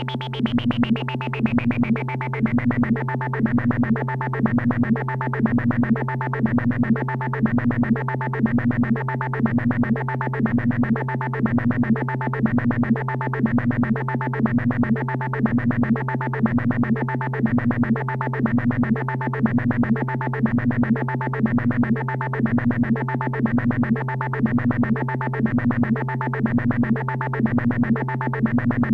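Synthesized vocoder sound effect: a short electronic pattern repeating about once a second over a steady low drone, with a high tone sliding down in pitch over the first few seconds.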